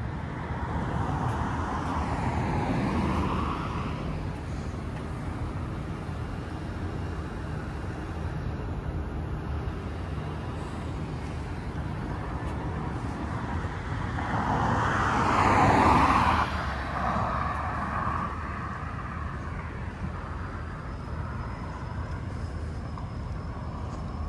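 Road traffic: a steady low rumble with vehicles passing on the roadway alongside. One goes by about two seconds in, and a louder one builds and passes about fifteen seconds in.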